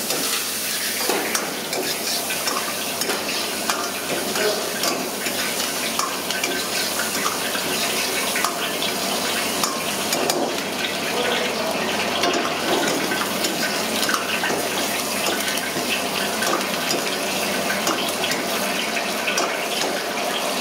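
Chopped garlic and green chilli sizzling in hot oil in a wok over a gas flame, with a metal ladle stirring and scraping, clinking often against the pan.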